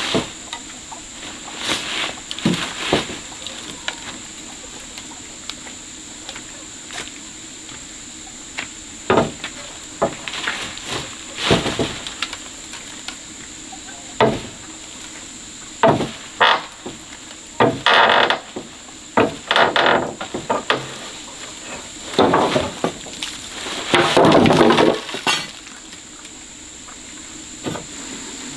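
Irregular knocks and clattering, some in quick clusters, over a steady high insect drone.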